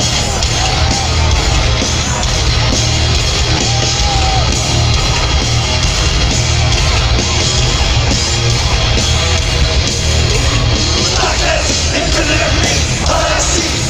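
Live heavy metal band playing at full volume: distorted electric guitars, bass and drums, steady and loud throughout.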